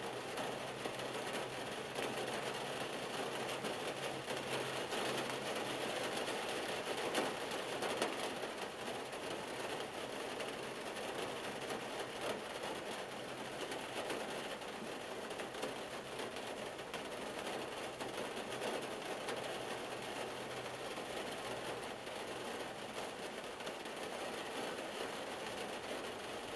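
Rain pattering steadily on a car's roof and windshield, heard from inside the cabin as a dense, even patter of fine drops.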